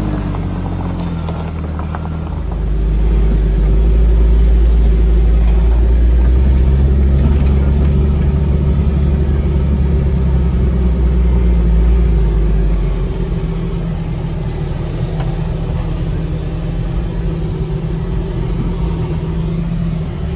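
Jeep engine running under load as it crawls slowly up a rough, rocky trail. A deep rumble swells about two seconds in and eases off again around twelve seconds.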